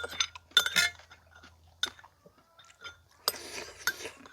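A spoon clinking against a soup bowl several times, with chewing between the clinks.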